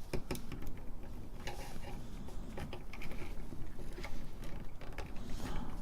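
Scattered small plastic clicks and scrapes from working at the tight keycaps of a TRS-80 Model I keyboard, with a low steady hum underneath.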